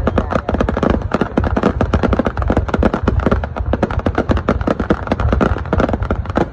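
Fireworks display: a dense, unbroken run of bangs and crackles, several a second, over a low rumble.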